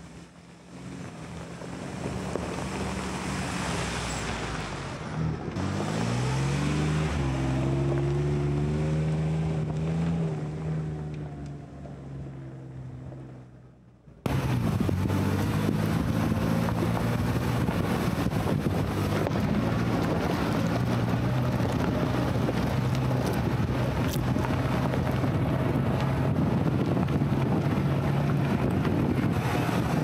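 Ford Bronco engine running while driving a rocky dirt trail, with wind noise. The engine pitch climbs about seven seconds in. Roughly halfway through, the sound switches abruptly to a louder, steady engine drone with wind.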